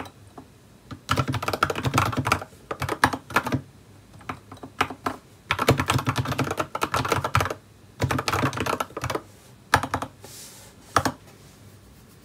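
Typing on a computer keyboard in quick bursts of keystrokes, with pauses between bursts, a few last single key presses, and then it stops near the end.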